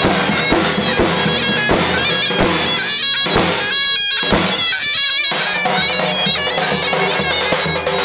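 Zurna (Turkish shawm) playing a loud, reedy, ornamented folk melody over the deep beats of a davul bass drum. The drum's low boom thins out for a couple of seconds midway, then comes back.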